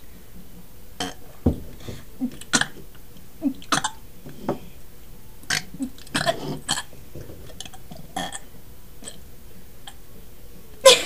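People burping, a string of short burps one after another, the loudest near the end.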